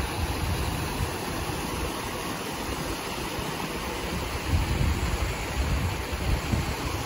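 Creek water of a small waterfall rushing over rock, a steady hiss. Gusts of wind on the microphone add low rumbles, strongest about four and a half to six seconds in.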